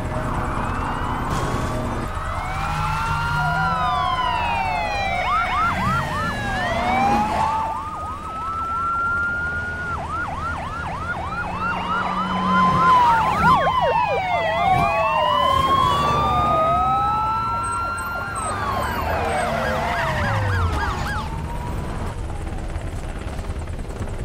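Several police car sirens sounding at once, overlapping wails rising and falling, with stretches of rapid yelp.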